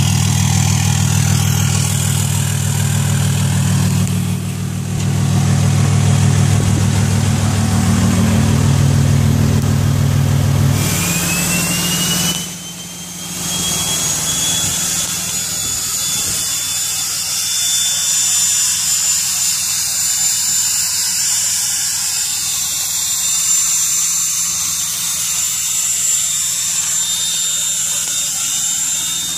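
Pickup truck's turbo-diesel engine idling with a deep, loud exhaust rumble. About a third of the way through, the rumble drops away and a high turbo whistle rises, then holds steady over a hiss, a jet-like sound from the exhaust brake engaging.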